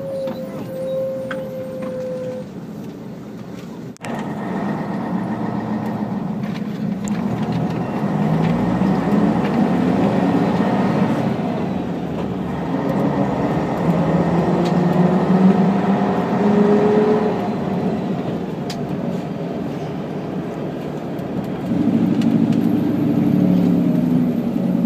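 Scania K113 coach's 11-litre straight-six diesel heard from inside the passenger cabin while driving. The engine note steps up about four seconds in and climbs steadily as the bus accelerates. It eases off past the middle, then picks up again near the end.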